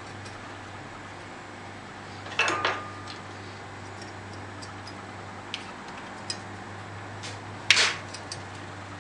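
Bicycle tire lever knocking and scraping against the bandsaw's metal wheel as a rubber tire is levered onto it: a few light clicks, with two louder clattering knocks about two and a half seconds in and near the end.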